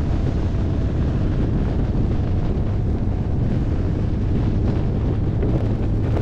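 Steady wind rush over a helmet microphone on a motorcycle moving at road speed, with the bike's engine and road noise underneath as a constant low rumble.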